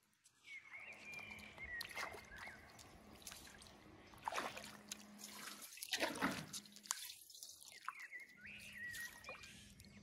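Shallow pool water splashing and dribbling as a dog paws at it, with a few louder splashes.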